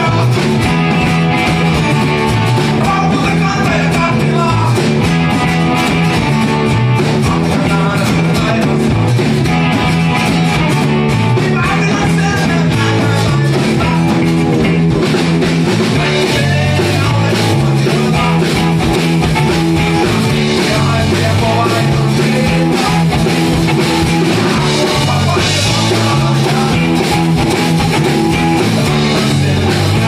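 Rock band playing a song live: acoustic-electric and hollow-body electric guitars, electric bass and drum kit, with a lead vocal.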